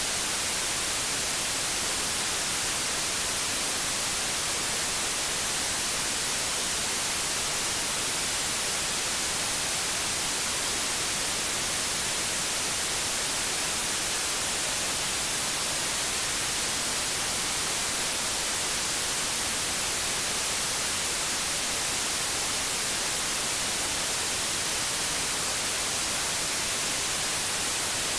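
Steady white noise: an even hiss, brightest in the highs.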